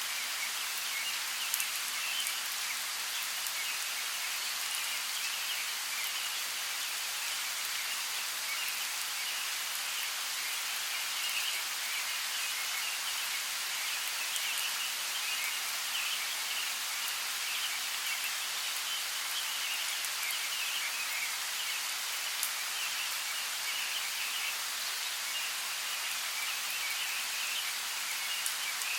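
Steady, even rainfall in a forest, with a few sharper drop ticks standing out now and then.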